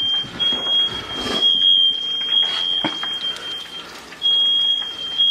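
Household smoke alarm sounding a shrill, high-pitched steady tone, broken only by brief dropouts and a short pause a little under four seconds in. It has been set off by cooking smoke. A faint knock is heard about three seconds in.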